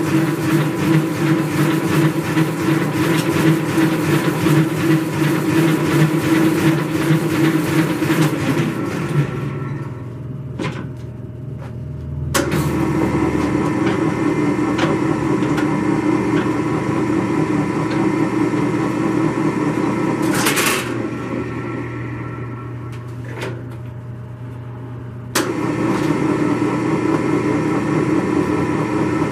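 Hobart H600 60-quart commercial planetary mixer running. Twice it cuts out and winds down for a few seconds, then starts again with a sharp click and is back to full running, as the speed is changed between runs.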